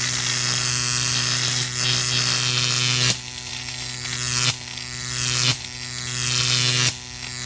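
Electric buzz sound effect: a steady hum under high crackling hiss, like arcing electricity. It runs unbroken for about three seconds, then cuts off and restarts abruptly several times.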